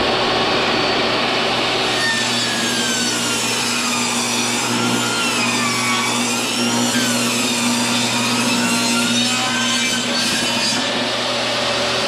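Portable table saw running and ripping a 2x4 lengthwise into 1.5 by 1.5 inch strips. The motor hum is steady, and from about two seconds in to about ten seconds in the blade's whine dips and wavers as the board is fed through the cut.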